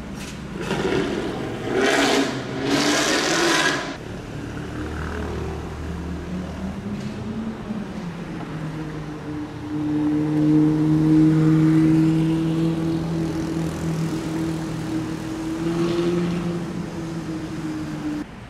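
Ford Mustang GT's V8 revved in three loud bursts as it pulls away. Then a Ferrari 458's V8 passes at a steady engine speed, loudest about ten seconds in.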